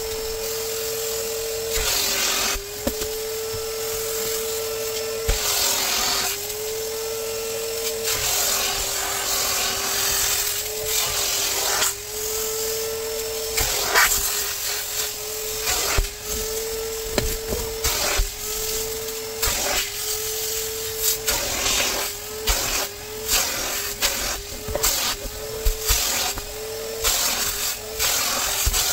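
Upholstery extractor's vacuum motor running while its hand tool is drawn over a fabric car seat. The motor's pitch steps up and down with each stroke, the strokes coming faster in the second half, with a hiss of air and suction on the cloth.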